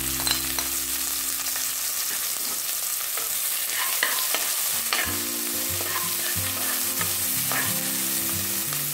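Chopped onion and green chilli sizzling in hot oil with cumin seeds in an aluminium pressure cooker, stirred with a steel spoon that scrapes and clicks against the pan now and then.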